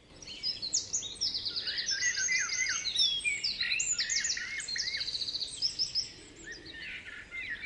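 Several songbirds chirping and singing together, with quick trills of rapidly repeated notes and short whistled sweeps, thinning out near the end.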